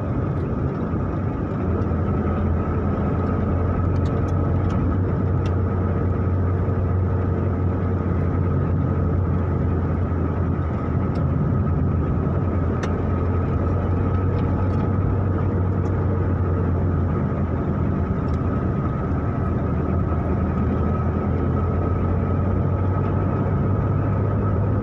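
Car driving steadily, heard from inside the cabin: a constant low engine and road drone with a faint steady whine above it.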